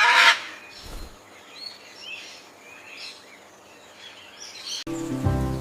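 A bird gives a loud honking call right at the start, followed by faint chirping of small birds. About five seconds in, the sound cuts to music.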